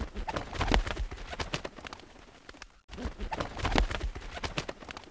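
A fast, uneven clatter of sharp knocks over low thumps from a television soundtrack. It plays twice in nearly the same pattern, with a brief break about halfway.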